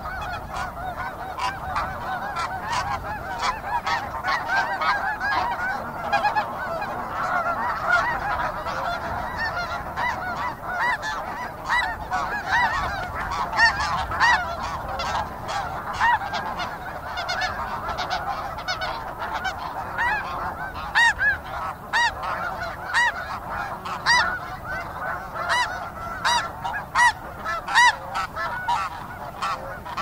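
A flock of snow geese calling busily, many honks overlapping into a continuous chorus. Louder, clearer single calls stand out above the flock more often in the second half.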